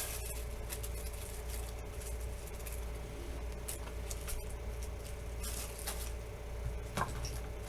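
Light rustling and small clicks of objects being moved about and searched through by hand, over a steady low hum.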